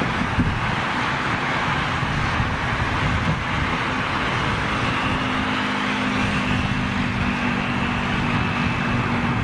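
Steady engine roar, with a low hum and a faint high whine joining in partway through.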